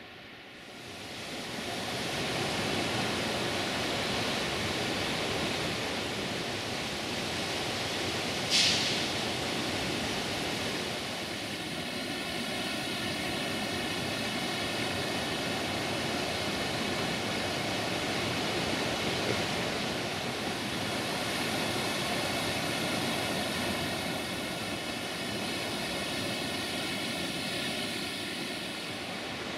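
Waterfall and cascades rushing in a steady, even wash of falling water that fades in over the first couple of seconds. There is one brief sharp sound about 8 seconds in.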